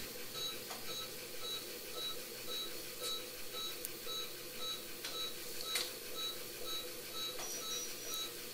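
Veterinary vital-signs monitor beeping in time with the anaesthetised cat's pulse, a short high beep about twice a second, matching a heart rate of about 113 beats a minute, over a faint steady hum with a few soft clicks.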